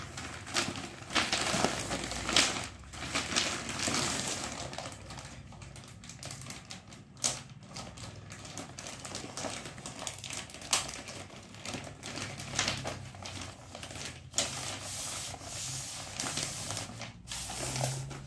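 Clear plastic wrapping crinkling and rustling as a bundle of white plastic tent poles is unwrapped by hand, with the poles clicking and knocking against each other now and then.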